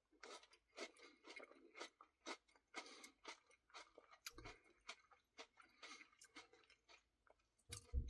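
Faint close-up chewing of a mouthful of cookie Blizzard ice cream, soft wet clicks about twice a second.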